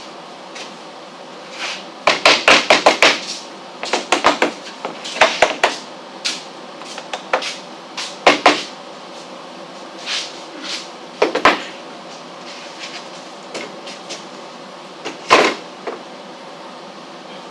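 Hammer knocking on wood in short runs of quick strikes, the loudest run of about six blows a couple of seconds in and single heavier knocks later, with a faint steady hum underneath.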